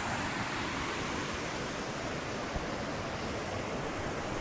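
Steady rush of river water tumbling over rocks in a small cascade.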